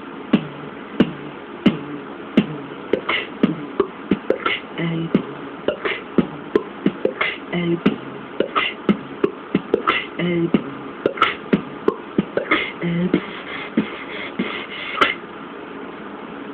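Beatboxing into a cupped hand: a steady beat of low kick-drum thumps and sharp snare-like clicks and hisses, two to three hits a second.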